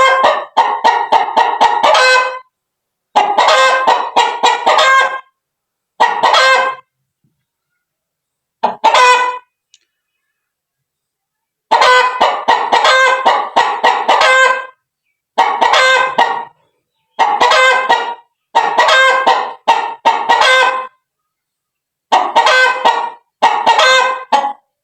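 White duck quacking loudly in quick runs of calls, about a dozen bursts of one to three seconds each with short silences between.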